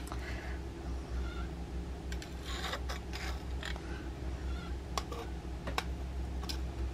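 A knife working a poached egg out of a metal poached-egg cup: faint scraping and a few light clicks, over a low steady hum.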